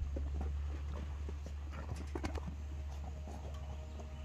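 A horse moving close by, with a few soft knocks and scuffs of hooves and muzzle on straw over a steady low rumble.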